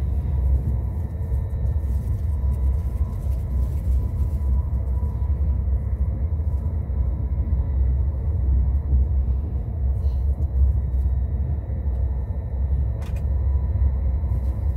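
Steady low rumble of a YHT high-speed train running at speed, heard from inside the passenger car, with a faint steady high whine over it. A single sharp click sounds near the end.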